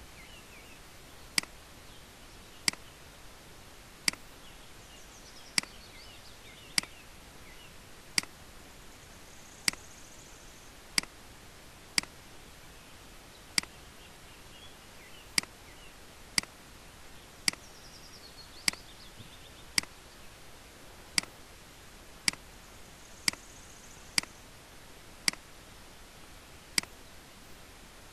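Computer mouse button clicking over and over, a single sharp click every second or so, about twenty in all, as images are placed one by one with a click each. A steady low hiss sits under the clicks.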